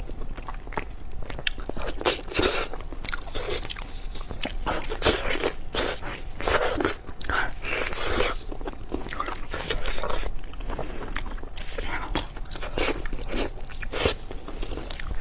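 A person biting and chewing braised beef knee bone meat close to the microphone: dense, irregular wet smacks and clicks of mouth and teeth.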